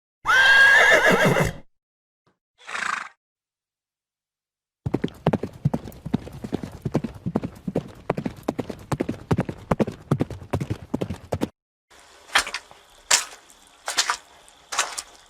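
A horse whinnying, then a short fainter sound, then hooves clip-clopping on hard ground for about six and a half seconds. After a short pause, a slower run of sharp clicks comes about one every three-quarters of a second over a faint steady tone.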